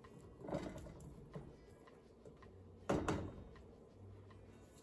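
Silicone spatula stirring chopped onion and garlic in a nonstick frying pan: a few soft scrapes and knocks against the pan, the loudest about three seconds in, over a low steady hum.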